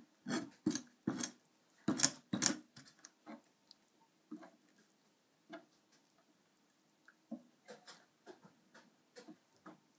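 Kitchen knife and hands working raw catfish fillets on a cutting board: a quick run of sharp knocks and taps in the first three seconds, then softer, scattered taps as the pieces are handled.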